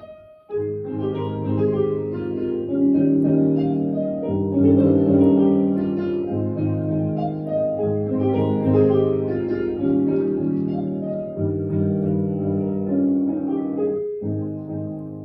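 Instrumental concert music playing sustained chords, starting about half a second in. It breaks off briefly near the end, then resumes more softly.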